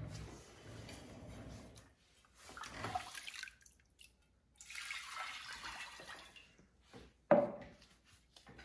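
Liquid pottery glaze pouring and splashing into a large unglazed bowl in three spells, then a sharp knock a little after seven seconds in.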